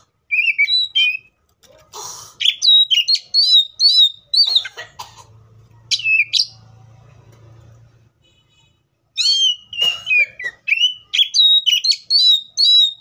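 Oriental magpie-robin singing: fast runs of sharp, repeated whistled notes in bursts, with a quieter gap in the middle.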